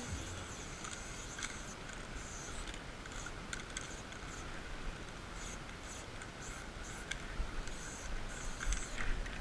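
Aerosol spray paint can hissing in many short bursts over a low background rumble.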